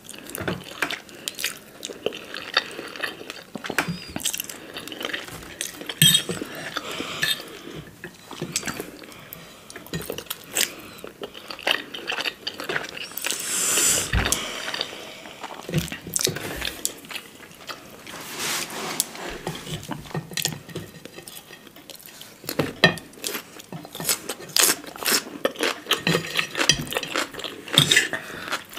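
Close-miked eating sounds of instant noodles: a fork and chopsticks clicking and scraping on ceramic plates, mixed with chewing and slurping, in many small irregular clicks with a longer noisy stretch about halfway through.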